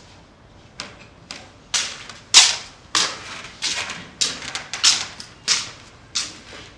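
A series of sharp clicks or taps, faint at first and then coming evenly about every two-thirds of a second, the loudest a little over two seconds in.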